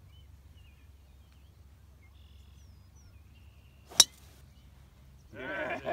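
A golf driver striking a ball off the tee about four seconds in: one sharp crack, the loudest sound here. Birds chirp faintly in the background.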